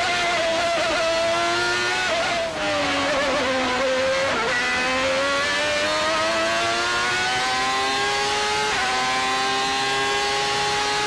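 Formula One car's engine heard onboard at high revs. The pitch sags with a gear change about two seconds in and is lowest around four seconds, then climbs steadily under acceleration, with another quick gear change near the end.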